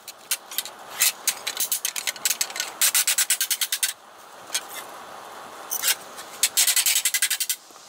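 Hammer rapidly striking a quarter-inch steel plate on an anvil, many light blows a second, putting a hammered texture on the metal. The blows come in quick runs, with a pause about four seconds in broken by a couple of single strikes, then a last fast run.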